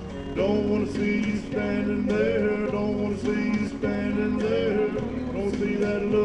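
A man singing karaoke into a microphone over a backing track with a steady beat.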